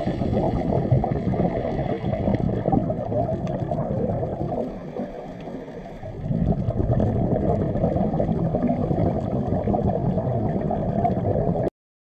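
Muffled underwater rumbling and gurgling of moving water picked up by a submerged camera. It eases briefly in the middle and cuts off suddenly near the end.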